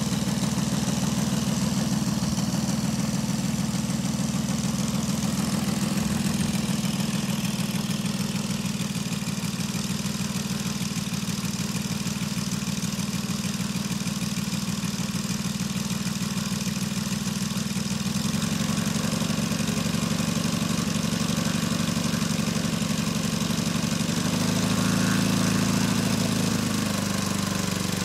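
Saito FG-60R3 three-cylinder radial petrol engine of a 1/5-scale RC warbird idling steadily on the ground. The pitch shifts slightly about two-thirds of the way through, and the revs rise briefly near the end before settling back.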